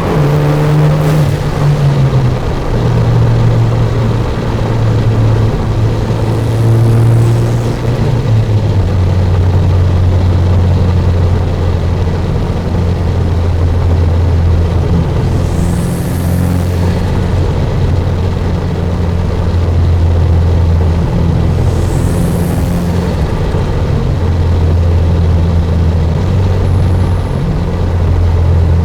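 Turbocharged Hyundai Genesis Coupe with a free-flow aftermarket exhaust cruising. The exhaust drone drops in pitch during the first couple of seconds and again about eight seconds in, then holds steady and low. A few brief hissing whooshes come over it.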